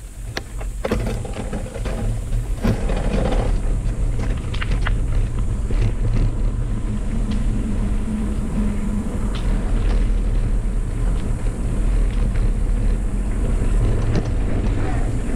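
Schwinn mountain bike rolling along a dirt trail: a steady low rumble of tyres on dirt and wind on the bike-mounted camera, with a few sharp clicks and rattles in the first five seconds.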